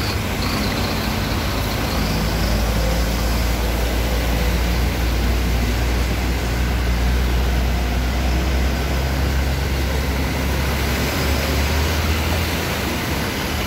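Truck engines running in slow traffic, a deep steady rumble that eases off near the end, with tyres pushing through floodwater over a steady hiss of water and rain.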